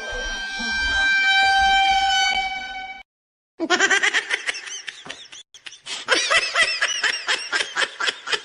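A horn sounds steadily for about three seconds, one of its tones shifting pitch about a second in. After a brief gap, a rapid run of short chirping squeaks follows.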